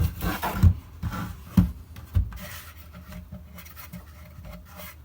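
Wood being rubbed and handled, with a few short scrapes and knocks in the first two seconds, then faint scratching.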